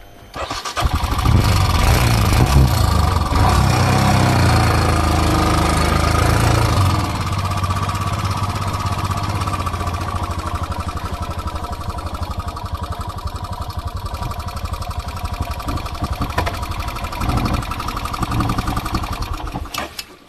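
Motorcycle engine revved hard, coming in abruptly about a second in and running loudest for several seconds, then running steadier and a little quieter until it cuts away at the end.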